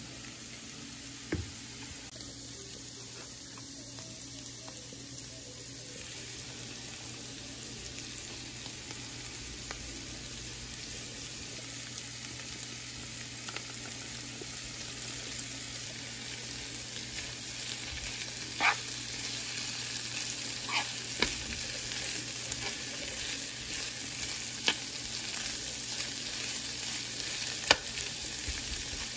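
Mixed vegetables and shredded chicken sizzling steadily in a frying pan. A metal spoon stirs them, clicking and scraping against the pan, with the clicks coming often in the second half.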